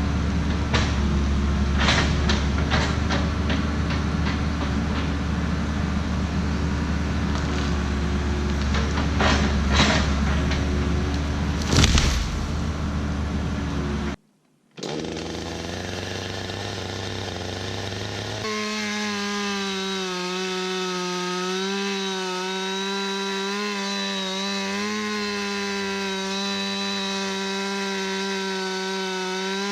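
For about the first fourteen seconds, a deep engine rumble with scattered cracks and knocks, loudest near the twelfth second. After a brief drop to silence, a chainsaw runs steadily at full throttle, cutting wood.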